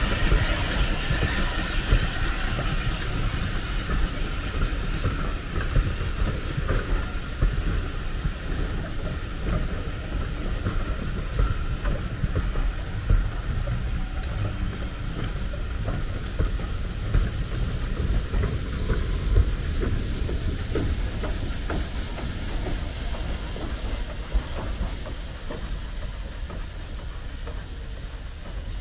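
Steam train running on the rails: a steady rumble with small irregular knocks and a hiss of steam, slowly getting quieter toward the end.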